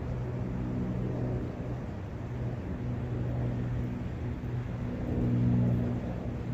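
A low, steady engine-like hum that drops out and comes back every second or two, swelling near the end, over a steady rush of brook water and wind.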